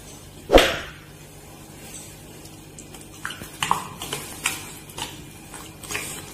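A steel spoon stirring ground spinach paste in a stainless steel mixer jar, clinking and scraping against the sides in quick light strokes from about three seconds in. A single sharp metal knock about half a second in is the loudest sound.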